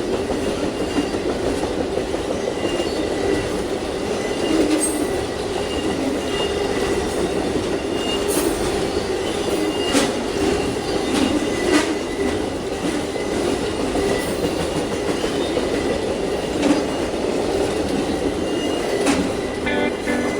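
Railroad cars rolling steadily past, with wheels clicking over rail joints now and then and a faint high wheel squeal.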